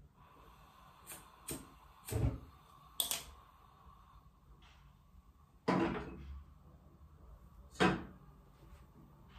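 Kitchen clatter: about six separate knocks and clunks, the two loudest in the second half.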